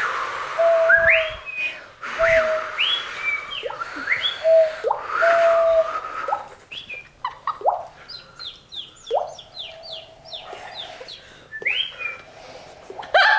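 A man imitating birdsong by whistling: rising and falling whistled chirps with short held notes, then a quick run of falling chirps, about three a second, in the middle.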